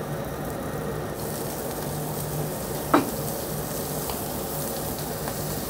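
Pork jowl slices with the skin on sizzling on a hot grill plate, a steady hiss, with one short sharp sound about three seconds in.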